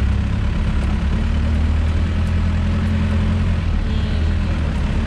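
Engine of a 4x4 off-road vehicle running steadily, a constant low hum.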